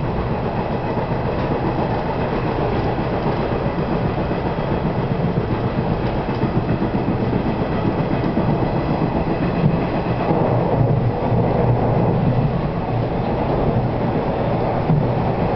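JNR-liveried 475 series electric multiple unit running along the line, heard from the front of the cab: a steady rumble of wheels on rail and running gear, with an occasional louder click.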